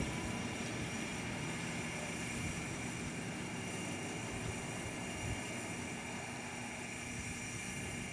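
Steady low background rumble with a few faint, unchanging high tones over it.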